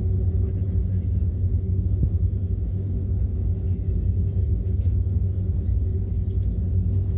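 Airliner cabin noise while taxiing: the engines' steady low rumble with a constant hum.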